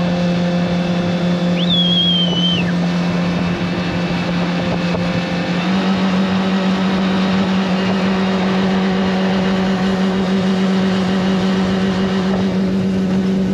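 A 115-horsepower outboard jet-drive boat motor running steadily at speed, with water rushing past the hull; its note steps up slightly about halfway through. A short high whistling tone sounds about two seconds in.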